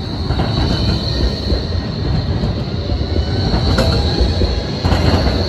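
Bombardier Flexity low-floor tram passing close by, its running gear rumbling with a steady high squeal from the wheels on the curving track. A couple of sharp clacks come near the end as the rumble builds.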